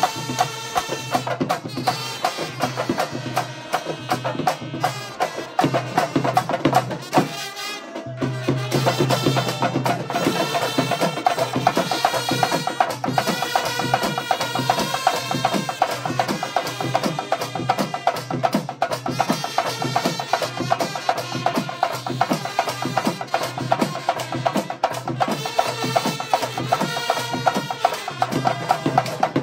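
Live brass band playing: trumpets and other brass horns carry the tune over a fast, steady beat from a stick-beaten bass drum, barrel drums and hand cymbals. The music breaks off briefly about a quarter of the way in, then comes back in full.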